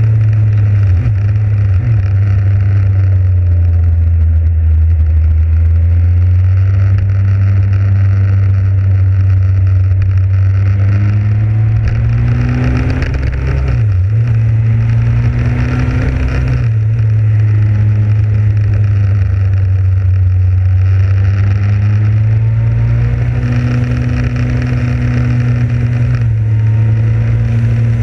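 Motorcycle engine running at road speed, its pitch rising and falling as the speed changes, with a quick drop and recovery about halfway through. A steady rushing noise of wind and road lies under it.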